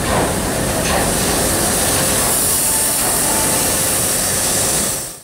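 Passenger train coaches rolling slowly past along a platform: a steady low rumble with a bright hiss over it. The sound fades out just before the end.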